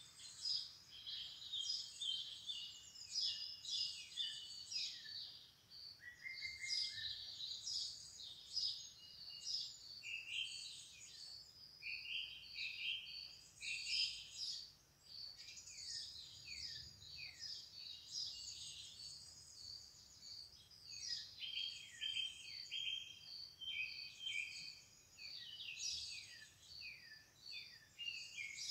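Birds chirping and singing continuously, with many short, quick calls overlapping, a lot of them sweeping downward in pitch.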